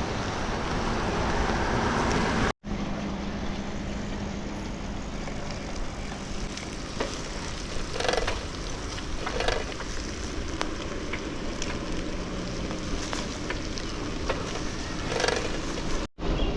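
Campfire burning with a steady hiss and a few scattered soft pops, cutting out briefly twice.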